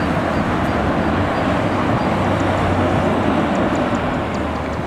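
Jet engines of a twin-engine airliner running as a steady, loud roar during the landing rollout on the runway, easing off slightly near the end.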